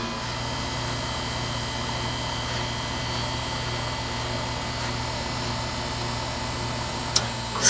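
Carrier 38YCC heat pump outdoor unit running steadily, its compressor humming and condenser fan turning. Near the end a sharp click, then the start of a loud rush of refrigerant as the unit is forced into defrost.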